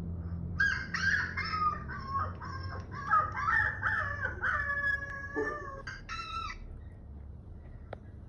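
Husky puppies howling in a video played through a laptop speaker: several high, wavering howls overlapping each other, stopping about six and a half seconds in.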